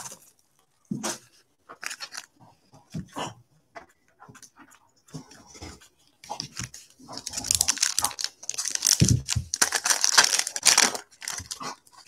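Foil trading-card pack wrappers rustling and crinkling under gloved hands, with scattered light taps and clicks. About seven seconds in comes a dense stretch of crinkling lasting about four seconds, with a low knock in the middle of it.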